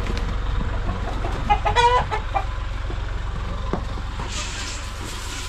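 Domestic chickens clucking, with one short, clearer call a little under two seconds in, over a steady low hum.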